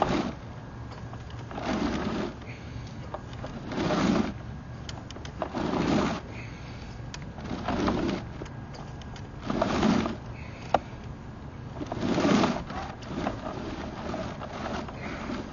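Sewer inspection camera's push cable being fed into a drain line by hand, making a swishing stroke about every two seconds over a steady low hum.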